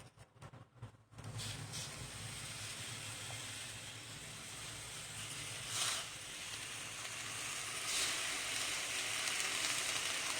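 Freshly washed Indian borage (karpooravalli) leaves sizzling in a hot kadai, the water on them hissing. The sizzle starts about a second in and keeps up, with a few short louder spurts and a little stronger near the end.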